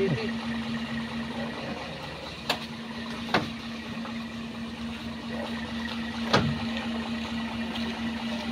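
Truck engine idling with a steady hum, broken by three short sharp clicks.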